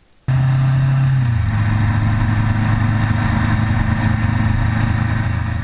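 Motorcycle engine running steadily at road speed under a rush of wind noise, cutting in abruptly just after the start; its pitch drops a little about a second in and then holds.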